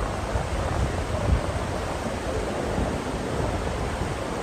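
Steady rushing of fast-flowing floodwater, an even noise without breaks.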